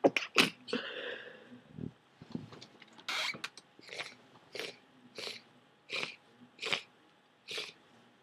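A person with a heavy cold sneezing at the very start, with a short second burst just after. Then seven short breaths follow, about three every two seconds, through a nose thick with snot.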